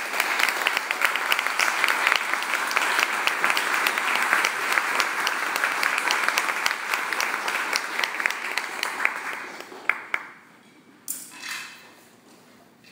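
Crowd applauding with dense clapping that fades out about ten seconds in; a couple of faint short sounds follow.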